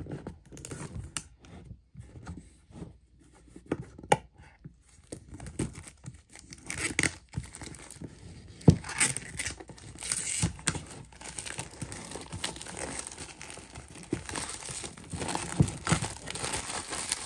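Clear plastic shrink wrap being punctured and torn off a cardboard box: scattered sharp ticks at first, then continuous crinkling and tearing of the film from about six seconds in, with a few loud snaps.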